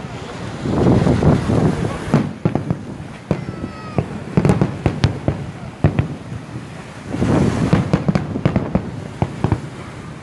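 Fireworks display going off: dense crackling from many small bursts, with sharp single bangs about four and a half and five seconds in and another thick stretch of crackling around seven to eight seconds.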